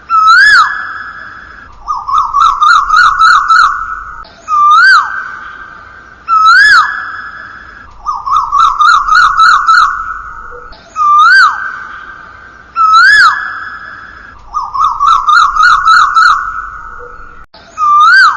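A loud, whistled bird-like call repeating over and over: two rising-and-falling whistles, then a quick run of about eight short chirps, the whole pattern coming back about every six seconds.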